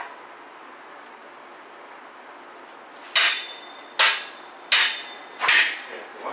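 Steel fencing sabres clashing blade on blade: a single sharp click, then from about three seconds in four hard strikes, roughly one every 0.8 s, each ringing briefly.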